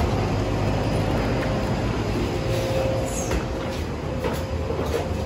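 Steady machinery hum with a rushing noise throughout. A door latch clicks as the door is opened at the start, and a few light knocks and clicks follow about three seconds in as she steps through the doorway.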